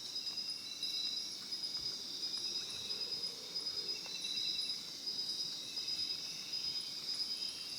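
Amazon rainforest insect chorus: steady high-pitched trilling, with several insects pulsing at different pitches.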